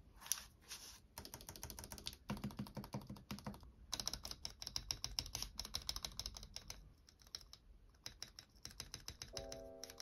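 Stabilised keys on a KBD67 Lite R3 plate, the spacebar and other long keycaps, being pressed over and over while the stabilisers are tested. The result is fast runs of key clacks broken by short pauses. Background music comes in near the end.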